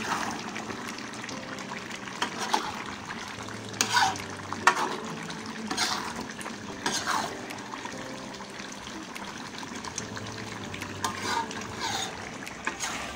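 A spatula stirring beef curry with potatoes in a metal karahi over a gas flame: the curry sizzles steadily while the spatula scrapes against the pan in a handful of sharp strokes.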